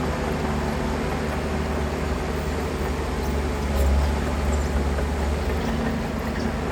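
Heavy diesel engine of earthmoving machinery running with a steady low rumble, which swells louder for a second or so about four seconds in.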